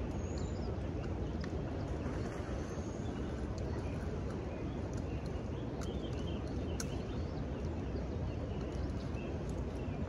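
Steady rushing of river rapids, an even wash of water noise that does not change.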